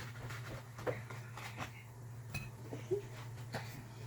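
Light clicks and soft scraping of fried dough balls being rolled in sugar in a bowl, over a steady low hum.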